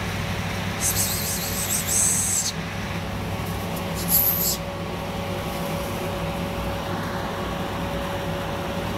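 A steady low hum, with two bursts of high hissing: one about a second in lasting over a second, and a short one about four seconds in.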